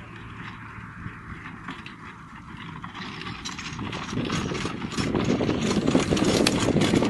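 Horse-drawn four-wheeled carriage trotting past close by: the wheels and harness rattle and click along with the horse's hoofbeats, growing louder from about three seconds in as it comes nearest.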